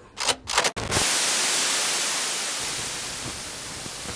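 A few sharp crackles, then a steady static hiss that slowly fades.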